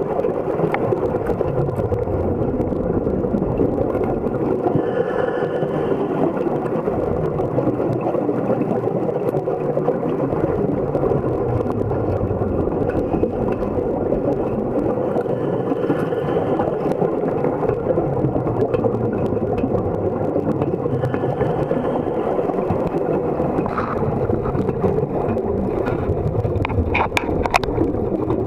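Underwater sound picked up by a submerged camera: a steady low rumble with bursts of bubbling every five or six seconds, from the exhaust air of a standard diver's helmet. A few sharp knocks near the end as the diver climbs the metal ladder.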